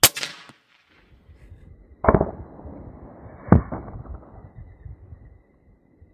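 FX King .35 cal PCP air rifle with a moderator firing an arrow: a sharp, loud crack with a short ringing tail. Two more loud sharp strikes follow, about two and three and a half seconds in.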